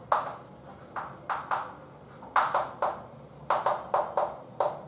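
Chalk writing on a blackboard: a string of short, irregular taps and scratches as the chalk strikes and drags across the board.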